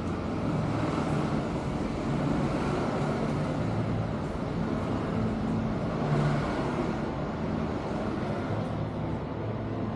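Street traffic: cars driving past with a steady low hum, swelling briefly about six seconds in.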